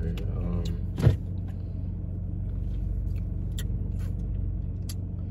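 Car engine idling, a steady low hum heard from inside the cabin, with one sharp knock about a second in.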